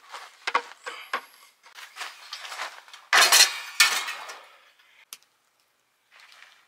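Dishes and cutlery clinking: a few light clinks in the first second and a half, one with a short ringing tone, then two louder, longer clattering noises about three seconds in.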